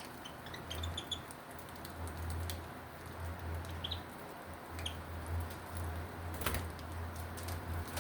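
Budgies giving a few short, high chirps while pecking at a millet spray, with many small clicks and one louder click about six and a half seconds in. A low pulsing hum runs underneath.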